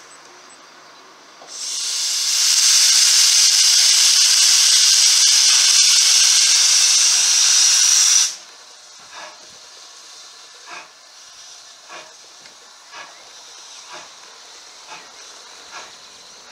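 Small 0-6-0 saddle-tank steam locomotive moving off, blowing a loud hiss of steam from its open cylinder drain cocks for about seven seconds. The hiss cuts off suddenly and is followed by soft exhaust chuffs about once a second as it pulls away.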